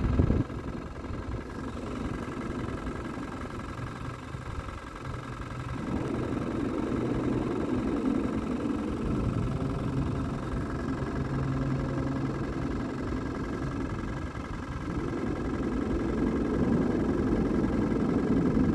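Road traffic crossing the bridge deck overhead, a steady low rumble that swells about six seconds in and again near the end as vehicles pass, heard from beneath the bridge.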